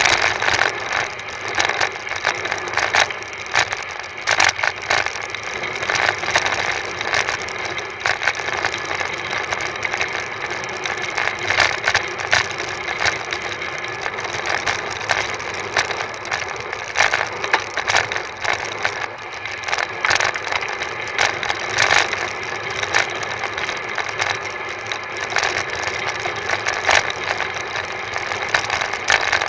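Constant rush with rapid, irregular rattling and clicking from a bicycle and its handlebar-mounted camera shaking over the tarmac on a fast road descent.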